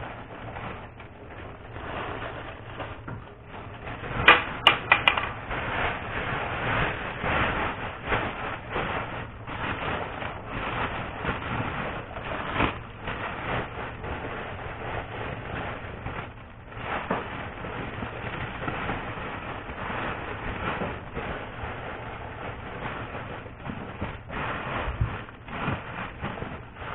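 Silver foil and cellophane wrappers crinkling and rustling as chocolates are hand-wrapped, in a dense run of small crackles and clicks, with a burst of sharper, louder clicks about four seconds in.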